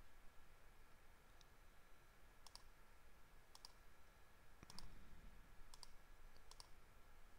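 Faint computer mouse clicks, each a quick press-and-release pair, about five of them spaced roughly a second apart as dimensions are placed in a CAD drawing.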